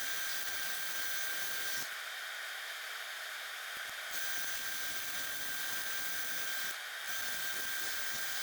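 Mini wood lathe running, a steady high whine over a hiss, with the sound shifting abruptly a few times.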